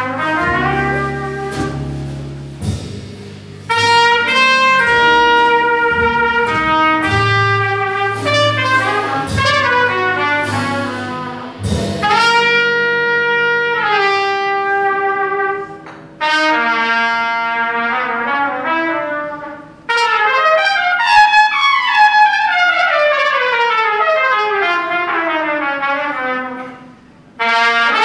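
Live jazz combo playing a slow ballad, with trumpet leading in long held notes over upright bass and guitar. About twelve seconds in the bass drops out, and the horns carry on alone in free, unaccompanied phrases with sweeping runs down and up the range.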